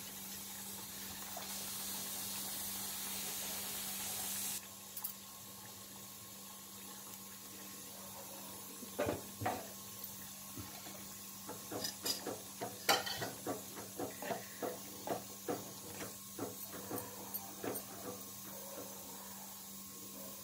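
Milagu kolambu (pepper-tamarind gravy) boiling in a clay pot, thick bubbles bursting in irregular pops, about two a second in the second half, over a steady low hum.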